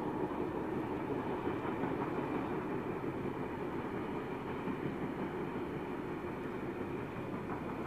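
Steam train running along the line, heard as a steady rumble without distinct exhaust beats.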